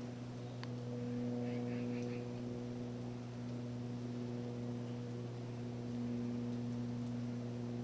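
Steady low electrical hum, even in level throughout, with one faint click about half a second in.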